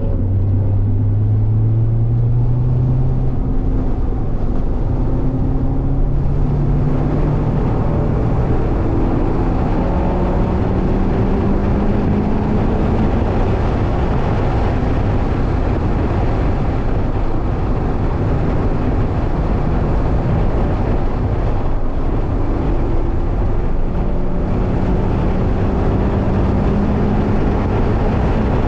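Mazda MX-5's four-cylinder engine heard from inside the cabin under hard acceleration, its note climbing in pitch several times as it pulls through the rev range and climbing again near the end, over steady tyre and wind noise.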